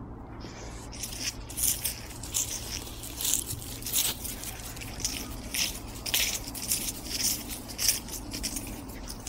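Footsteps crunching through dry fallen leaves and grass, roughly two steps a second, starting about a second in.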